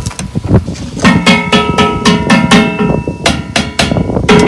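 Background music with a steady beat and held chords that shift a couple of times.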